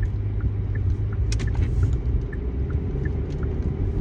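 A steady low rumble, like a motor vehicle running, with a few faint short ticks over it.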